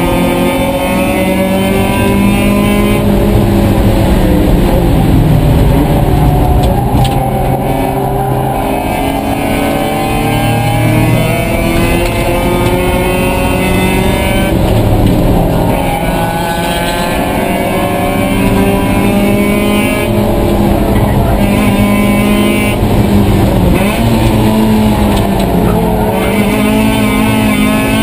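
Mazda Miata race car's four-cylinder engine driven hard, heard loud from inside the cockpit, its pitch repeatedly climbing and then dropping as it accelerates, shifts and brakes.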